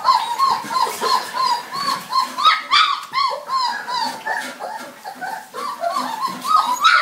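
A litter of puppies whining and yelping without pause, short high-pitched arched cries about three a second, overlapping from several pups.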